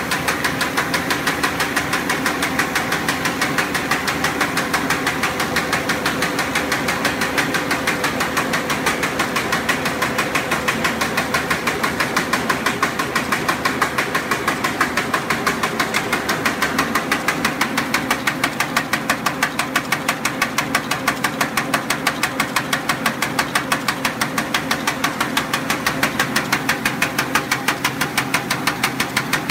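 V-bottom paper bag making machine running: a steady, rapid mechanical clatter of several even strokes a second over a constant hum.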